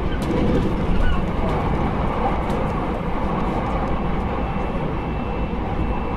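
Interior running noise of a JR Hokkaido 789 series 1000 subseries electric express train: a steady rumble of wheels on rail as it runs along the line. A faint steady high tone joins the rumble about three seconds in.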